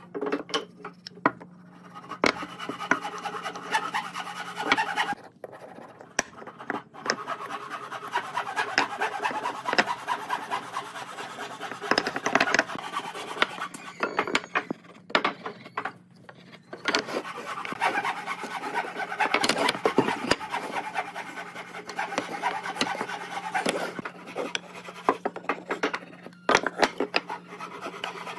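Wood being worked by hand with an abrasive tool: many quick rubbing, scraping strokes, pausing briefly about five seconds in and again around fifteen seconds in. A faint steady hum sits underneath.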